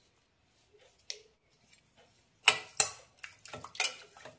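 A steel spoon stirring water and grains in a stainless steel pressure cooker pot, clinking against the metal: two sharp knocks about halfway through, then a run of lighter ticks. One faint click comes earlier, about a second in.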